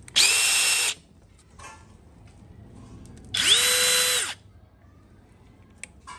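Cordless brushless impact drivers triggered briefly at no load: each pull is a high motor whine that rises quickly, holds for under a second and falls away. Two pulls about three seconds apart, the second with a lower note.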